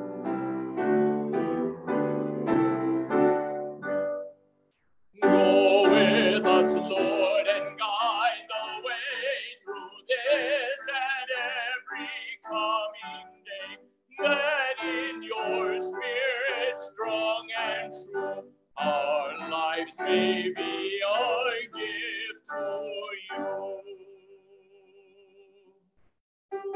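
Music: keyboard chords, then a long passage of operatic-style singing with strong vibrato over keyboard accompaniment, broken by short pauses and fading away near the end.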